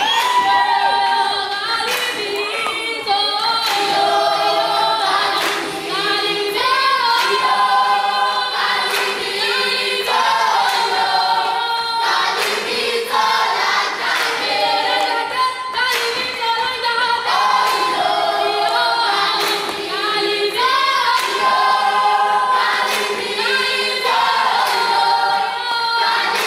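Children's choir singing a cappella in harmony, with sharp percussive hits here and there.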